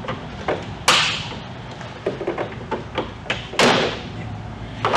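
Plastic pop-tab clips on a 2003–2007 Chevy Silverado grille snapping loose as the grille is pried free: two loud, sharp snaps, about a second in and about three and a half seconds in, with lighter plastic clicks and knocks between.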